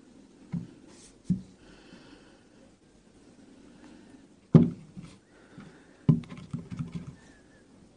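Red apples handled by fingers on a paper tissue: tapped, turned and set down, giving dull thumps. Two soft thumps come in the first second and a half, a loud one about four and a half seconds in, and a quick run of knocks between six and seven seconds.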